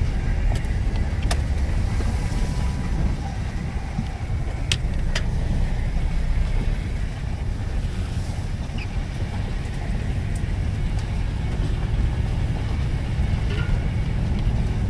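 Mitsubishi L200 pickup driving slowly over a rough green lane, heard from inside the cab: a steady low engine and road rumble, with a few sharp knocks in the first few seconds.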